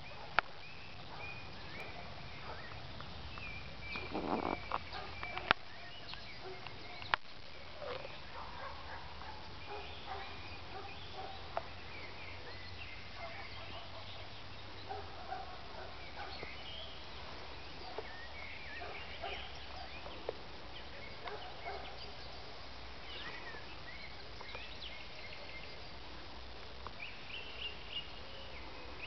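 Outdoor wildlife ambience: many short animal chirps and calls scattered throughout, with a lower, longer call about four seconds in. A few sharp clicks stand out, and a faint low rumble runs underneath.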